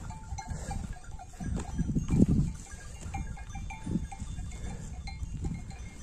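Small bells on grazing sheep clinking now and then over a low rumbling noise that swells about two seconds in.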